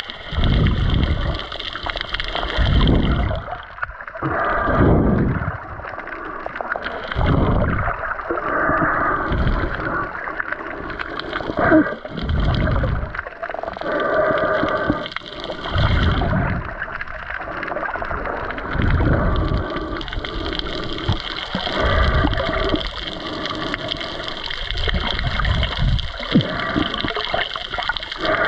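Water heard underwater: a steady gurgling and bubbling rush, with a low surge swelling and fading about every two to three seconds, as a diver swims.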